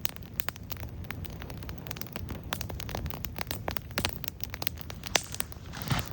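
Small wood campfire crackling, with many quick, irregular pops and snaps of burning sticks.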